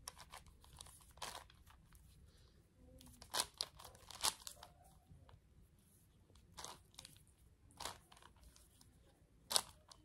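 Plastic layers of a 5x5x5 Rubik's cube being turned, giving short crunchy clicks at irregular intervals; the loudest click comes near the end.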